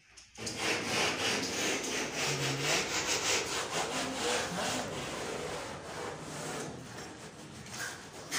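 Rhythmic rasping strokes of hand work on building material, about three strokes a second, strongest in the first half and growing fainter.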